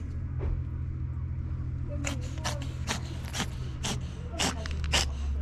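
A cat sniffing right at the microphone: a run of short, sharp sniffs, about two a second, starting about two seconds in, over a steady low hum.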